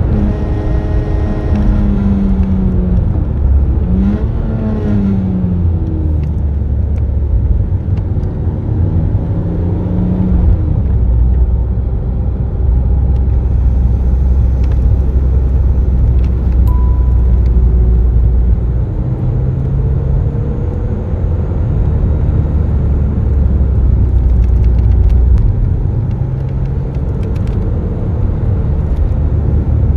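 BMW Z3 M Roadster's 3.2-litre naturally aspirated inline-six heard from the cockpit, rising and falling in pitch with revs and gear changes for the first ten seconds or so, then settling into a steadier low drone.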